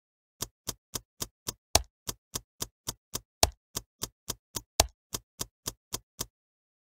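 Intro sound effect of sharp, evenly spaced clicks, about four a second, with three louder ones among them, stopping shortly before the end.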